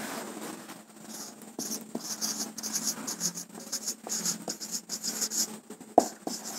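Felt-tip marker writing on a whiteboard: quick, scratchy strokes as letters are formed, with a single sharp tap about six seconds in.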